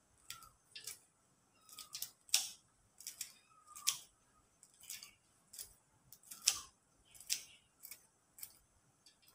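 Kitchen scissors snipping green chilies into a bowl: irregular sharp snips, about two a second, some with a short scrape of the blades.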